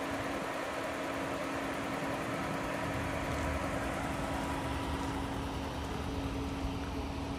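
A Ram ProMaster 3500 van's 3.6-litre V6 idling steadily with its hood open, a constant hum with no change in engine speed.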